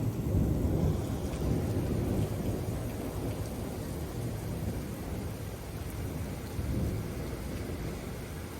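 Thunder rumbling over steady rain: the deep rumble swells right at the start, eases, swells again about two-thirds of the way through and dies away.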